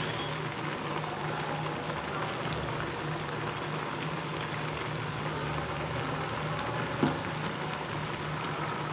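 Elephant apple slices boiling in water in an aluminium pot, a steady bubbling hiss as a wooden spatula stirs them. One soft knock comes about seven seconds in.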